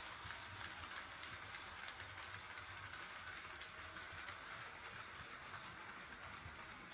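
HO scale model train running on KATO Unitrack: a faint, steady rolling and motor sound with light wheel ticks.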